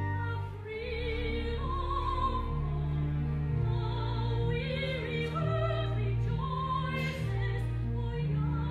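Solo soprano singing in operatic style with a wide vibrato, phrase after phrase, over a sustained instrumental accompaniment whose low notes shift every second or two.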